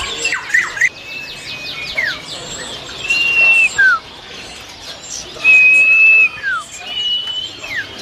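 Caged songbirds singing: clear whistled notes, several held level for about half a second and ending in a downward slur, among quicker chirps.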